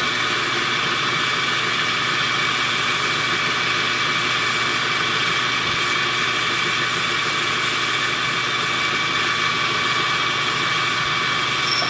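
Small metal lathe running at a steady speed, a constant motor hum with a high whine, spinning a scored glass test tube in its collet.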